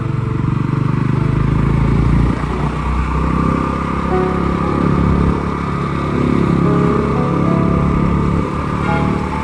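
Motorcycle engine running while the bike is being ridden, its level rising and dipping a few times.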